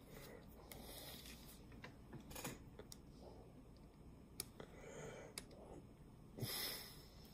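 Faint handling noise: a few small clicks and light rustles from handling a small tool, with a short breath or sniff about six and a half seconds in.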